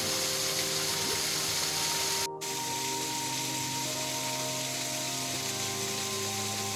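Steady rush of a waterfall with soft background music of slow, held notes laid over it. The sound drops out sharply for an instant about two seconds in, like an edit cut.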